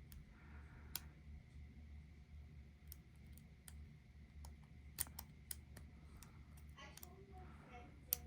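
A lock pick working the pins of a Yale euro cylinder lock: a handful of faint, irregular metal clicks and ticks over a low steady hum.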